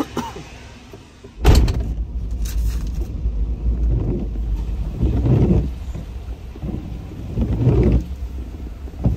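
A pickup truck door shuts with a loud thud about a second and a half in, followed by the steady low rumble of the truck on the road.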